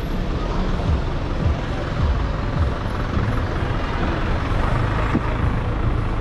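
City street traffic, with a heavy vehicle's engine running close by.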